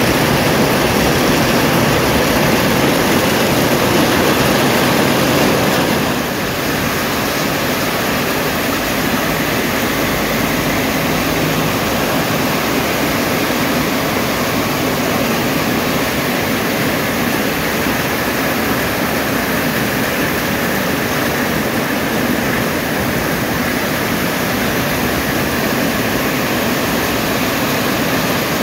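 Heavy rain falling with wind: a loud, steady rush of downpour that drops slightly in level about six seconds in, then carries on unchanged.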